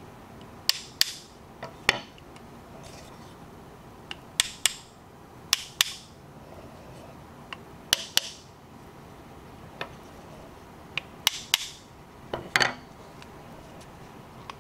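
A small ball-peen hammer tapping the steel of an 1851 Navy cap-and-ball revolver: sharp metallic taps, mostly in quick pairs, about seven times, each with a short ring.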